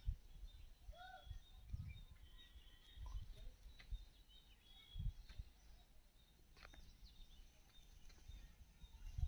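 Faint bird chirps and short calls in the background, with irregular low rumbles and thumps on the microphone, the strongest about two and five seconds in.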